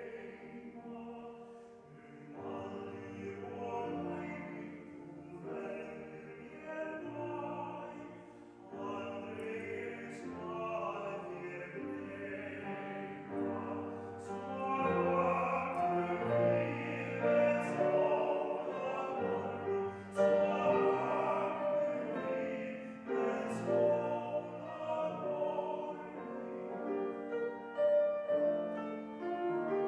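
A small choir singing a slow piece with piano accompaniment, growing louder about halfway through.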